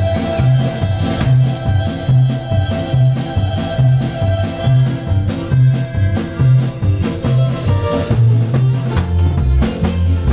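Norteño dance music played loud, with a drum beat and a bass alternating between two notes on the beat. The bass line drops lower near the end.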